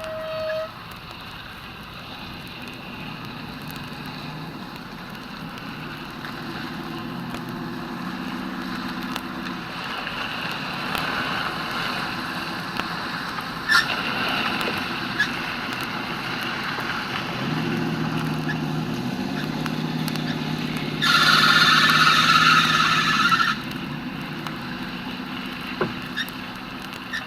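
Motor vehicle engine running, its pitch shifting and climbing in steps, with a loud, noisy blast lasting about two seconds near the end.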